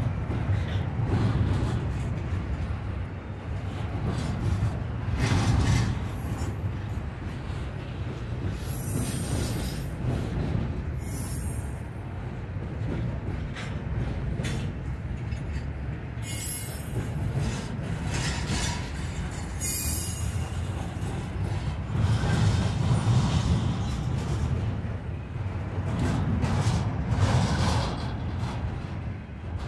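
Freight train rolling past: a steady low rumble of the cars on the rails, with a few brief high-pitched squeals from the wheels.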